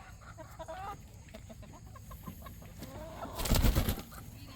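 Chickens clucking in short low calls, broken about three and a half seconds in by a loud rumbling burst of noise lasting under a second.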